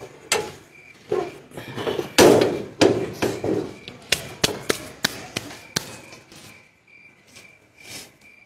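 Repeated clattering knocks and bangs of a stall's door being hauled shut by hand, thickest in the first half and thinning to a few sparse knocks. Crickets chirp steadily behind it.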